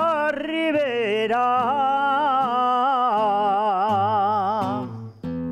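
An elderly man singing an Aragonese jota to his own acoustic guitar strumming, drawing out the word 'Ribera' in long held notes with a wide vibrato. The sung line ends just before the end, and a guitar chord rings on after a short dip.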